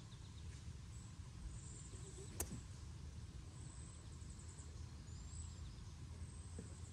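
A golf club striking a ball once, a single sharp crack about two and a half seconds in, over a steady low wind rumble on the microphone.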